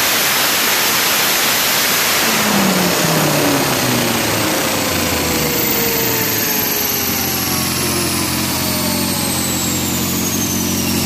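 Turbocharged Dodge SRT-4 2.4-litre four-cylinder on a chassis dyno winding down after a full-boost pull: the engine note falls in pitch, then settles into a steady idle about seven seconds in. A steady rush of the dyno cooling fan runs throughout, and a high whine glides slowly down in pitch in the second half.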